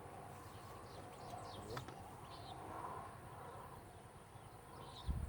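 Faint outdoor ambience: a steady insect hum with a few short bird chirps, and a brief low thump at the very end.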